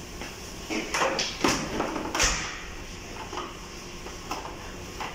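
Power cord plug being handled and pushed into the electrical safety analyzer's mains socket: a few light plastic clicks and knocks, about one, one and a half and two seconds in, with fainter ones later.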